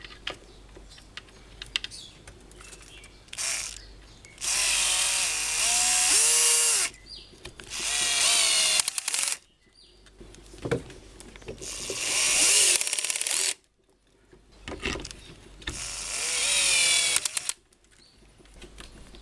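Electric drill-driver running in the new bolts on a water pump's housing flange: four runs of about two seconds each, the motor's pitch sagging as each bolt draws tight.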